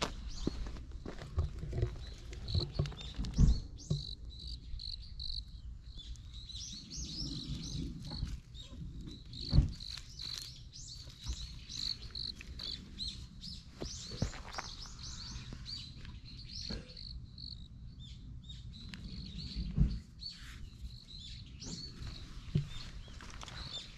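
Outdoor ambience of many short, high chirps repeating throughout, from birds or insects in the greenery. A few dull thumps sound close to the microphone.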